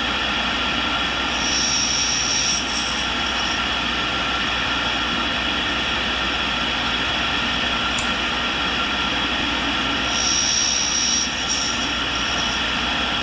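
Tool and cutter grinder's wheel running steadily while grinding the flutes of a high-speed steel roughing end mill, with two passes of high-pitched grinding squeal, one about a second in and one about ten seconds in.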